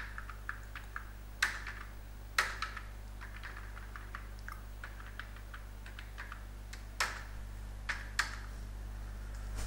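Typing on a computer keyboard: irregular keystroke clicks, with a few louder strokes among them, over a steady low electrical hum.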